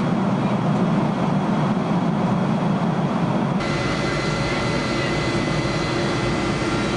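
Steady cabin noise of a Boeing 727 in flight: a constant rumble with a rush of air. A little past halfway the sound changes abruptly, with more hiss, a deeper rumble and faint steady whining tones.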